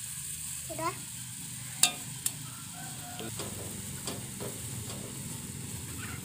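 Instant noodles boiling in water in an aluminium pot, stirred with a metal spoon: a steady bubbling hiss, with a sharp clink of the spoon against the pot a little under two seconds in and a lighter one half a second later.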